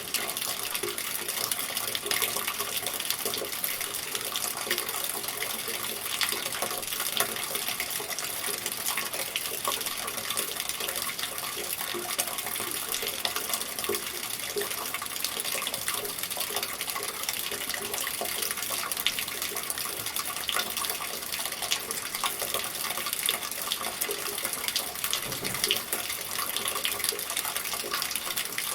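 Steady rain falling: an even hiss of drops with many small, separate drop ticks through it.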